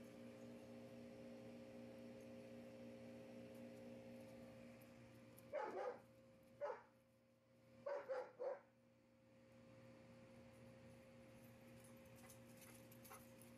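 A dog barking about five short barks in two quick groups around the middle, over a steady low hum.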